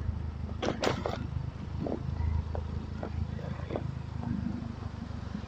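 Motorcycle running at riding speed, a steady low rumble of engine and road noise picked up by the rider's microphone, with a few short clicks and knocks, a quick cluster about a second in and single ones over the next few seconds.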